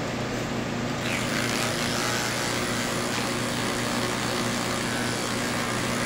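Cordless electric pet clippers running with a steady hum as they shave matted fur off a Persian cat; from about a second in, a rougher rasping cutting sound joins as the blades work through the mats.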